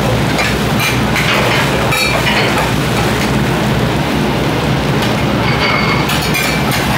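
Okonomiyaki sizzling on a hot steel teppan griddle over a steady low hum, with a few sharp scrapes and clinks of metal spatulas and a steel dome lid against the griddle.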